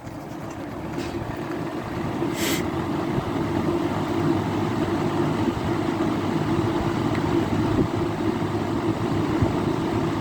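Hunter FZ20 metal-bladed box fan spinning up on its high speed, getting louder over the first three seconds, then a steady whir with a hum. A short click about two and a half seconds in.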